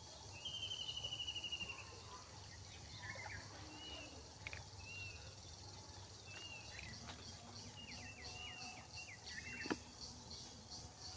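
Wild birds calling: a rapid trill about half a second in, then scattered short, repeated chirps, over faint high-pitched insect pulsing. A single sharp click near the end.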